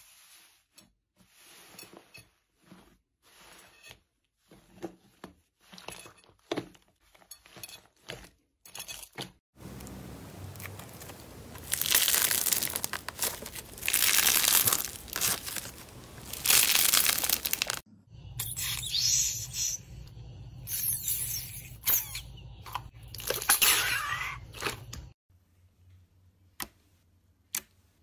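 Slime handled by hand, first with a run of soft sticky pops and clicks. Then, from about a third of the way in, comes loud crackling and crunching as the slime is squeezed and pressed, with a brief break partway through. It stops abruptly near the end, leaving faint ticks.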